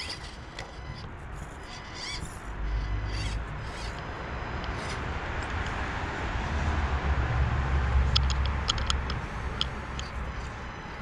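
Small electric motor of a 1/24-scale RC rock crawler whining faintly as it crawls over garden rocks, with low rumbling and short sharp clicks, and birds calling.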